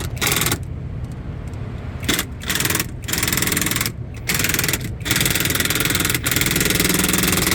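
Power screw gun driving the clutch switch housing bolts in a series of bursts, several short and the last ones long, over a steady low engine hum. One bolt is going in hard, and the driver does not like how the bolts sound as they thread in.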